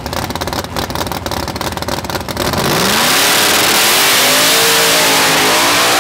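ProCharger-supercharged Hemi V8 drag car idling roughly on the starting line, then launching about two and a half seconds in at full throttle, its engine note climbing steeply as it runs hard down the track.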